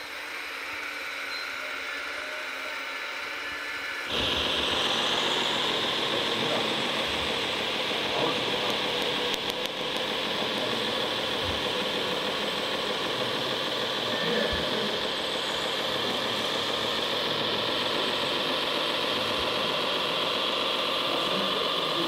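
Radio-controlled Mercedes-Benz Arocs model truck running, with a steady motor and gear whine that jumps louder about four seconds in and then holds steady.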